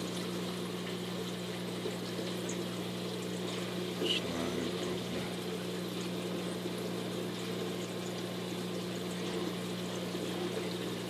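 Saltwater aquarium pump and plumbing running: a steady rush and trickle of circulating water over a low, steady pump hum. The water is bubbling because the tank's water level is low. There is a faint tick about four seconds in.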